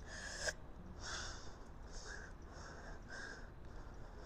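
A woman breathing hard from exertion while doing squats, heard close on a clip-on microphone: a run of short, hissing breaths, about one a second.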